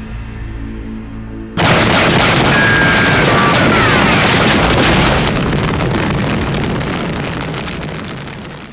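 Low ominous music, then about a second and a half in a sudden loud explosion sound effect that rumbles on and slowly fades out over several seconds.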